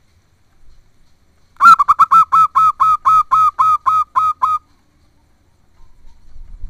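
Zebra dove (perkutut) calling: a rapid run of about a dozen short, clipped cooing notes at about four a second, lasting some three seconds.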